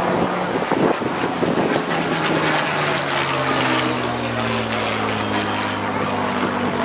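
Supermarine Spitfire Mk XI's Rolls-Royce Merlin V12 engine droning as it flies past, its note sliding slowly lower from about halfway through. Wind buffets the microphone in the first couple of seconds.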